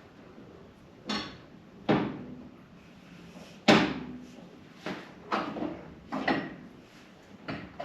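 Seven irregular knocks and clunks of metal parts during refitting of a motorcycle's front wheel, axle and spacers. Each knock rings briefly, and the loudest come about two and four seconds in.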